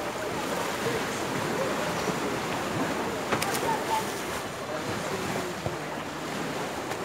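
Water splashing around legs wading through knee-deep sea water, over the distant chatter and shouts of swimmers and wind on the microphone. A short sharp sound a little over three seconds in.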